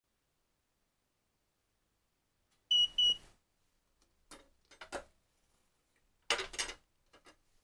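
Melody Susie LED gel curing lamp giving two short high beeps, the signal that its 30-second cure timer has run out. Then a few short knocks and rustles as the lamp is handled and lifted off the swatches.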